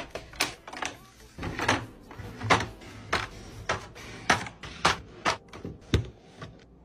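Hard plastic clicks and clacks of makeup cases and lip products being set down into a clear acrylic organizer and vanity drawers, roughly one to two sharp taps a second.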